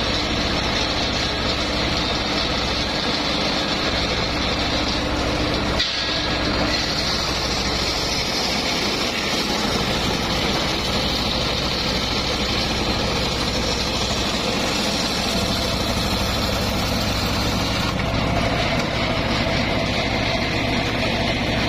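Homemade circular sawmill running steadily: its engine drone with the high whine of the spinning saw blade, which grows stronger from about six seconds in and eases near the end as it works through mahogany.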